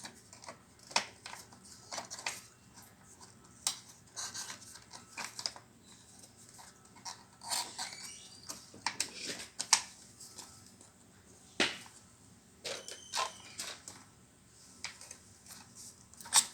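Irregular clicks, taps and light scrapes of hands handling an SSD and its rubber support mounts while fitting it inside an iMac, with a sharper knock about twelve seconds in.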